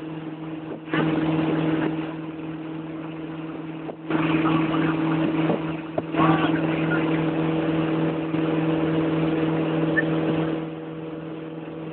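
Motorboat engine running steadily at speed while towing a waterskier, with rushing wind and wake water over it. The rush swells loudly for about a second near the start and again from about four to ten and a half seconds in.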